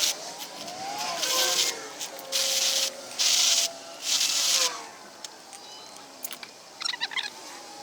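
Electric drill with a large bit grinding out a hole in a plaster-and-sand furnace lining, in four short bursts of rough scraping about a second apart, the motor's pitch rising and falling. A few light clicks near the end.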